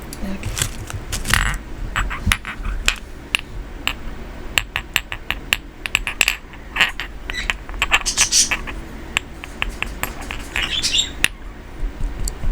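Irregular small clicks and clinks of hard little objects being handled, coming in quick clusters.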